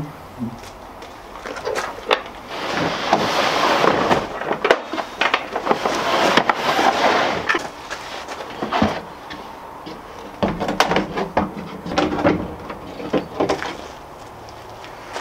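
Plywood camp kitchen box being handled and dragged across a pickup's ribbed bed liner: a long scraping rush lasting several seconds, with repeated knocks and clunks of wood and metal-cornered box against the truck bed.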